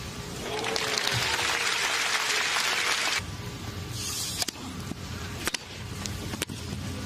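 Crowd applauding, which cuts off sharply after about two and a half seconds. Then tennis racquets striking the ball on a serve and the start of a rally, sharp hits about once a second.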